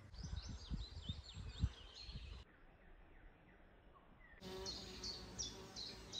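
Small songbirds chirping and singing in woodland: quick high chirps at first, then after a quieter gap a bird repeating short song phrases. A low rumble sits under the first couple of seconds, and the background changes abruptly twice.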